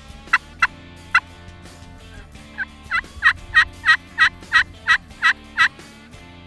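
Turkey yelping: a few single yelps, then a quick run of about ten yelps at roughly three a second.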